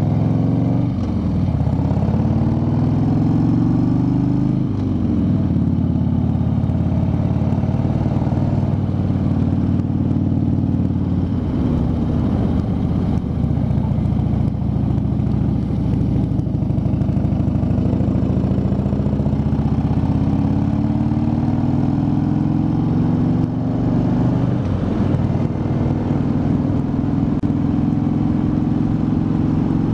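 Harley-Davidson V-twin motorcycle engine running under way. Its note climbs as it pulls and then drops sharply, about four seconds in, again near the middle, and again a few seconds before the end.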